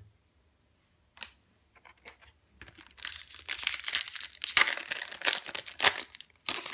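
Foil Yu-Gi-Oh! booster pack wrapper crinkling as it is handled and torn open: a few faint clicks, then a dense run of crackles from about two and a half seconds in, and one more short burst near the end.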